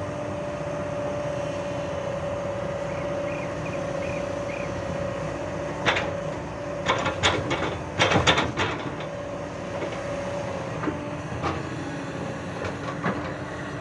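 Hyundai hydraulic excavator running steadily with a constant whine, then a burst of clatter and thuds from about six to nine seconds in as a bucketful of earth is dumped into the body of a Tata tipper truck, with a few more knocks near the end.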